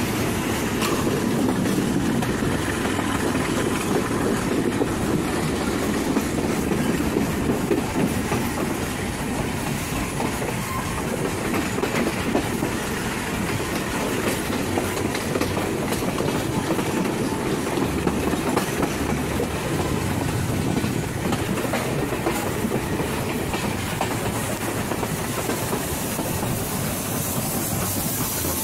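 Passenger train running along the track, wheels clattering steadily over the rails, heard through an open carriage door. Near the end a high hiss comes in.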